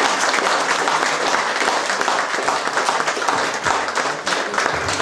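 A roomful of guests applauding, many hands clapping at once in a steady, dense patter.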